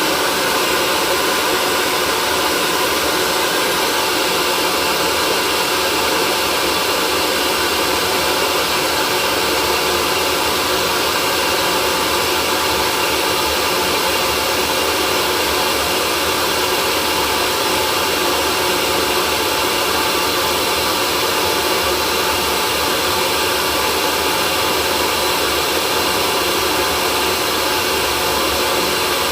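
Hair dryer running steadily: an even, unbroken rushing hiss with faint steady tones inside it and no change in level.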